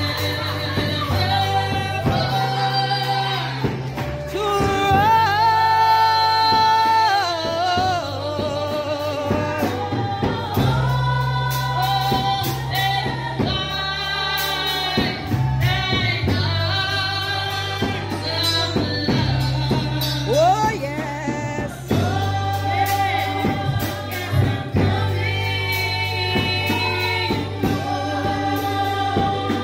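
Women's voices singing gospel praise through microphones, with an electronic keyboard playing long, sustained bass notes underneath.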